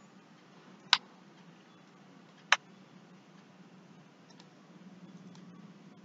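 Two sharp computer mouse clicks about a second and a half apart, then a few much fainter ticks, over a faint steady low hum.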